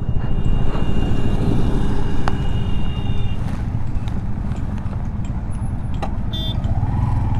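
Motorcycle riding on a highway: steady engine and road rumble with other traffic around. A short high beep sounds about six seconds in.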